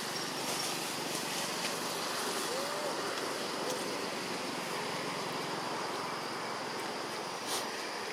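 Steady rushing road-traffic noise, with two faint short chirps about two and a half and three and a half seconds in.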